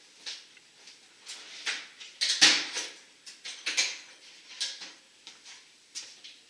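Metal hand-tool clatter: a string of sharp clicks and clanks every half second or so, the loudest about two and a half seconds in.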